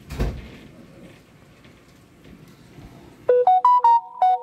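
A sharp thump just after the start, then about three seconds in a loud, quick run of short electronic beeps stepping between a few pitches.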